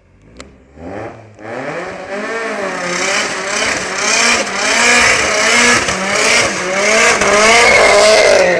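Nissan 200SX engine held at high revs in a burnout, its pitch wavering up and down as the rear tyres spin and squeal. It builds from about a second and a half in and is loudest near the end.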